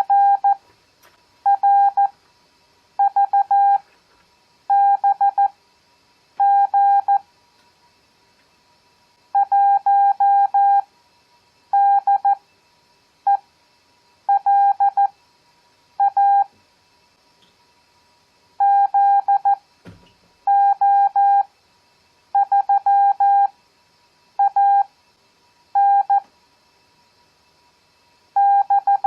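Morse code (CW) practice tone: a single-pitch beep keyed in dits and dahs, sending five-character groups of random letters, numbers and punctuation at 14 words per minute with Farnsworth spacing at 7 words per minute. Each character is a short cluster of beeps, separated by long pauses, with longer gaps between groups.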